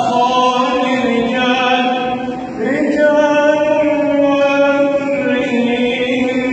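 A man chanting Quranic recitation in the melodic tajwid style, holding long drawn-out notes. He breaks briefly about two and a half seconds in, then starts the next phrase with a rising pitch.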